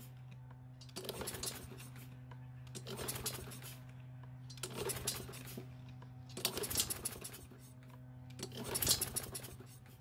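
Troy-Bilt push mower's Briggs & Stratton engine being pull-started: five pulls of the recoil starter rope about two seconds apart, each a short rising-and-falling whir as the engine cranks without catching. The engine is flooded with fuel from a leaking carburetor.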